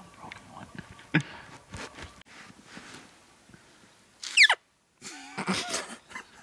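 Elk call blown by a hunter: about four seconds in, a loud high squeal falling steeply in pitch, then after a short break about a second of lower, rougher notes. Light rustling and clicks come before it.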